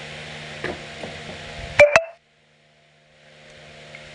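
Two sharp metallic clinks with a short ringing, about two seconds in, as a clutch-pack plate is handled at a transmission clutch drum, over a steady shop hum. Right after them the sound cuts out completely for under a second, then the hum fades back in.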